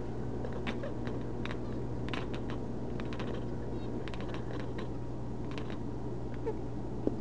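Scattered light clicks and taps, irregular and in loose clusters, over a steady low hum.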